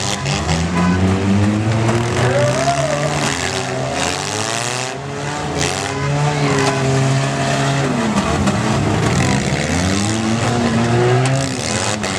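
Engines of several gut-n-go demolition derby cars revving hard, their pitch climbing and dropping in repeated swells, with a little tire squeal.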